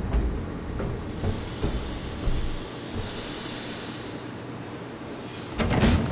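Ship's engine-room machinery humming steadily, with a hiss for a few seconds in the middle. Near the end comes a quick run of loud clattering knocks.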